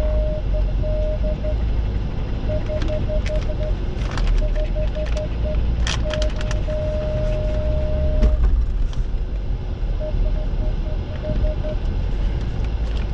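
An electronic warning beep, one steady high tone, sounding sometimes as a long continuous tone and sometimes as runs of short quick beeps, then stopping near the end. Under it is a steady low rumble like an idling vehicle, with a few sharp clicks and knocks.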